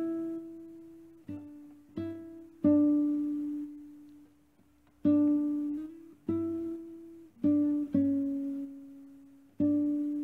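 Background music of slow, sparse plucked guitar notes, each ringing out and fading before the next, with a short near-silent pause a little before the middle.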